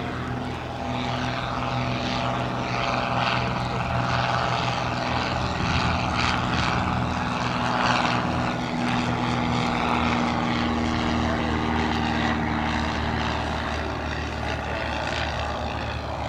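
Cessna 172's single propeller piston engine running steadily, a continuous propeller drone at an even level.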